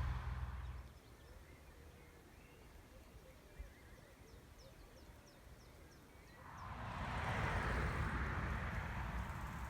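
Wind rumbling on the microphone, dying away after about a second. Then a small bird gives a run of short, high chirps, about two a second, over quiet woodland. From about six and a half seconds a rushing noise swells up.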